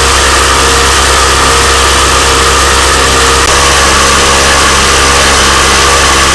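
12-volt heavy-duty portable air compressor running continuously, very loud and steady, supplying air directly to a LEGO pneumatic engine.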